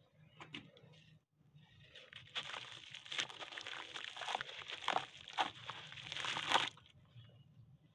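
A sun-dried slab of red brick soil and sand being crumbled by hand, crunching and crackling as bits drop into muddy water. A few short crackles come about half a second in, then dense crumbling from about two seconds in that stops sharply near the end.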